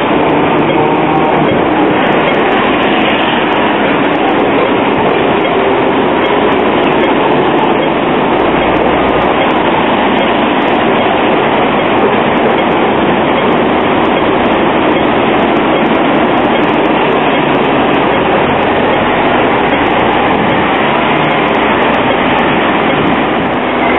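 Double-deck electric trams and buses passing close by in street traffic: a steady, dense traffic noise without breaks.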